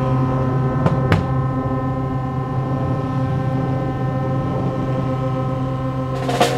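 Wind and brass ensemble (trumpet, trombone, tenor saxophone, tuba) holding one long, steady chord with a strong low note at the bottom. Two sharp taps come about a second in, and a short rushing noise near the end.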